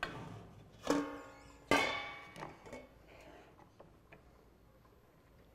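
Stainless steel pan being handled on a counter: two metallic clanks about a second apart, each ringing briefly, then a few lighter knocks.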